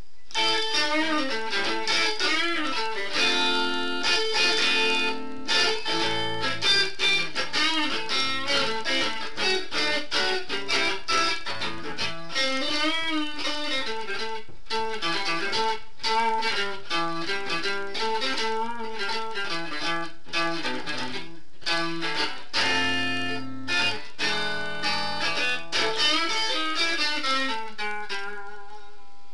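Electric guitar played solo: a run of single-note melody lines with string bends and vibrato. Near the end it finishes on a note left ringing and fading away.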